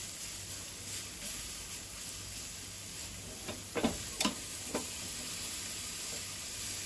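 T-bone steak sizzling steadily on a hot cast iron sear grate over charcoal. Three short metal clicks a little past halfway.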